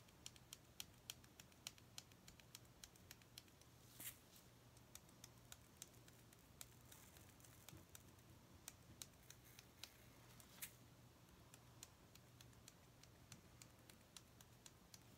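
Faint, quick light ticks of glitter being sprinkled onto a tumbler over paper, several a second at first and sparser later, with a couple of louder taps from handling the tumbler and the small plastic glitter cups.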